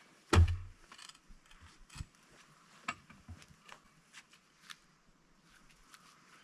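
A heavy thud about half a second in, then scattered light clicks and knocks as a big log is levered and rolled with a cant hook.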